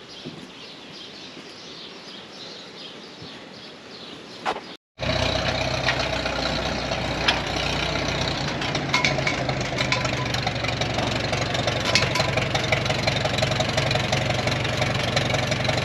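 1941 Farmall M tractor's four-cylinder petrol engine running steadily, with a light regular ticking over its low hum; it comes in abruptly about five seconds in, after a quieter stretch with a single clunk.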